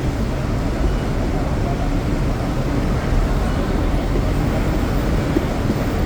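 Steady rumble of busy street traffic, with buses and other vehicles passing.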